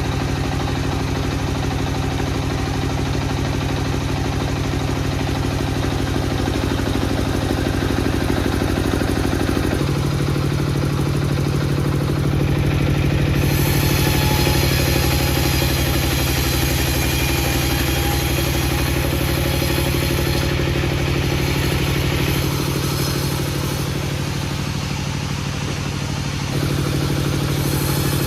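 An engine running steadily at a constant speed. Its tone changes abruptly several times, about ten seconds in, again a few seconds later, and twice near the end.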